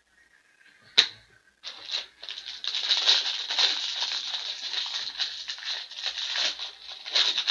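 One sharp knock about a second in, then the continuous crackling and crinkling of a foil trading-card pack wrapper being torn open.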